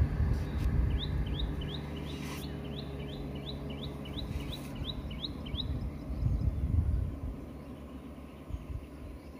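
A bird calling a quick run of short rising chirps, about three a second, for several seconds, over a steady low rumble.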